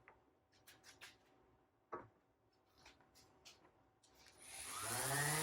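A few light clicks and taps, then about four seconds in an electric power tool's motor switches on and spins up, its whine rising in pitch.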